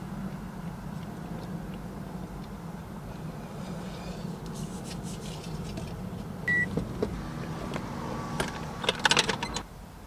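Steady low hum inside a minivan, with one short electronic beep a little past halfway. Near the end a quick cluster of plastic clicks and rustling, the loudest part, as FPV goggles are handled and put on.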